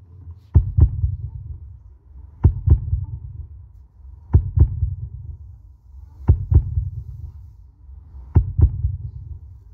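Slow heartbeat sound effect played over the sound system: five double thumps, one pair about every two seconds, over a low drone.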